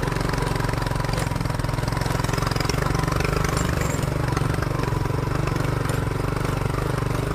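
Motorcycle engine running steadily at an even pace, heard close up from the pillion seat.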